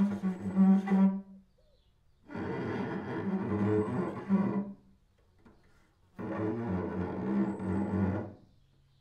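Cello bowed in three separate long strokes of about two seconds each, with short silences between: the first is already sounding at the start and stops about a second and a half in, the second and third sit on a lower, deeper note.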